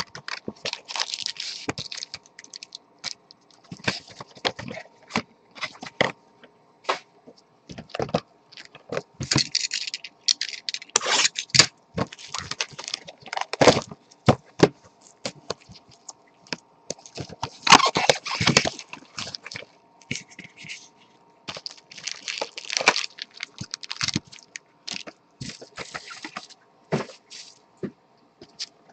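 Plastic wrapping and cardboard crackling and scraping in irregular bursts, with sharp clicks, as boxes and packs of trading cards are opened and handled.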